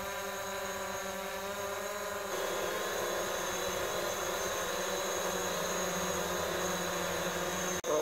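DJI Mavic Pro quadcopter hovering on its original propellers: a steady buzzing hum of several stacked tones. About two seconds in, the hum of the same drone on Platinum 8331 propellers is laid over it at a slightly different pitch, and the sound grows a little louder and fuller.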